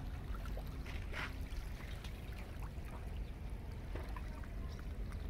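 Outdoor ambience: a steady low rumble with scattered faint clicks, and a faint steady hum that stops about a second and a half in.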